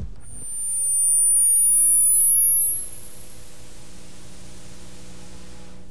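Pure high-pitched test tone from a frequency generator, fading in and then sliding slowly and steadily upward in pitch before stopping about five seconds in. It is a hearing-limit sweep, climbing into frequencies that listeners stop hearing one by one.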